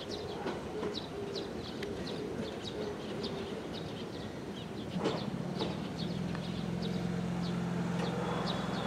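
Chichibu Railway electric train pulling slowly into the station, its low hum building from about halfway and growing louder, with a single knock about five seconds in. Short falling bird chirps repeat two or three times a second throughout.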